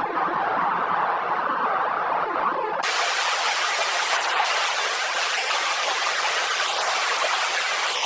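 Steady rushing noise of water, changing abruptly about three seconds in to a brighter, hissier rush.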